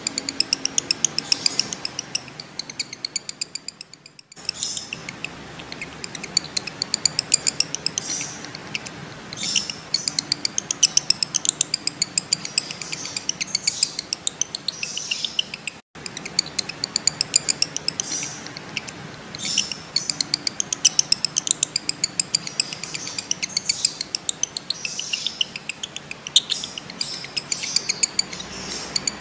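Male lovebirds in breeding condition chattering: long runs of rapid, high-pitched chirps and ticks, the long chatter keepers call ngekek. It breaks off briefly about four seconds in and again midway.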